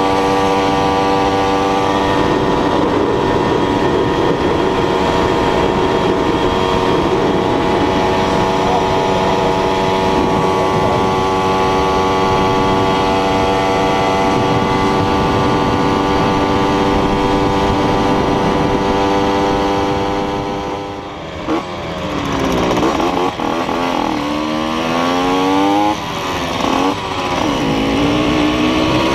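Small motorcycle engine running at steady cruising revs, with wind rushing over the microphone. About three-quarters of the way through the revs fall as it slows, then the engine note rises in about three sweeps as it accelerates up through the gears.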